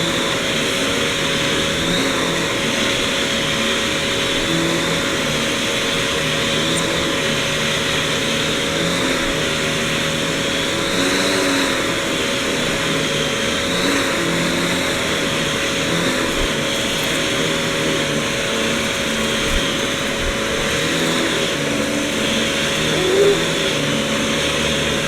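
Vacuum cleaner running steadily, its motor holding one constant whine over a loud airflow hiss.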